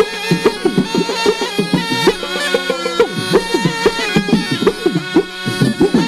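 Indian snake charmer's music: a pungi (been) gourd pipe playing a reedy melody over its steady drone, with quick hand-drum strokes that bend down in pitch, several a second.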